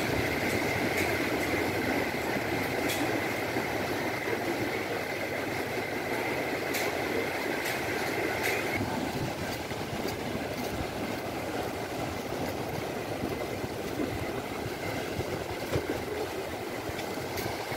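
Ocean surf: waves breaking and washing up the beach in a steady rush. A faint, steady high whine sounds along with it and cuts off about nine seconds in.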